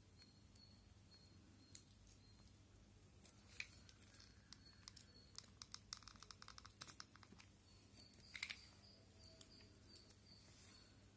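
Faint small clicks and crinkles of cut foil medicine blister-strip pieces being handled and pressed into place, with a quick run of tiny clicks about six seconds in, over a low steady hum.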